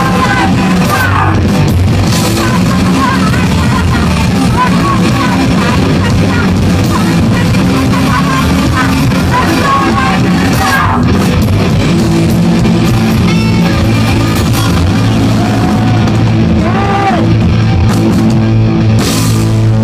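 Rock band playing live and loud: electric guitars, bass and drums, with a shouted lead vocal over them.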